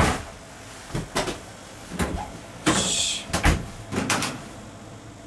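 Kitchen cabinet doors being opened and shut: a sharp knock at the start, then several lighter knocks and bumps, with a short scraping rub about three seconds in.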